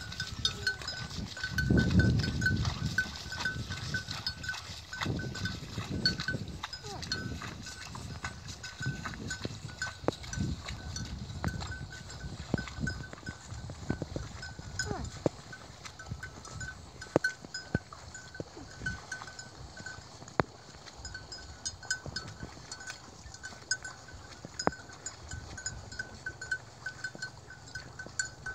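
Open-field sound around a herd of grazing water buffaloes: scattered soft clicks and rustles, and low rumbles, the loudest about two seconds in. Over them a high chirping repeats throughout.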